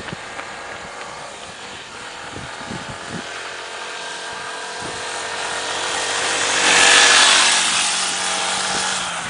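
A motor vehicle's engine passes by: a steady engine hum that grows louder to a peak about seven seconds in, then fades.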